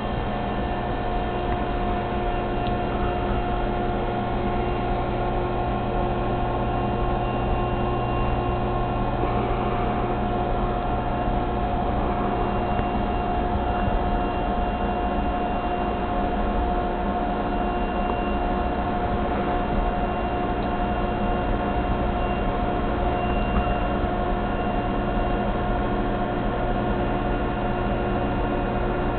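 Reef aquarium equipment running with a steady hum and several steady tones, unchanging throughout.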